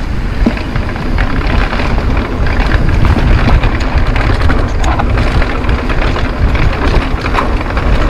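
Wind rushing steadily over the camera microphone on a mountain bike riding fast down a dirt singletrack, with the tyres rumbling on the dirt and a few light clicks.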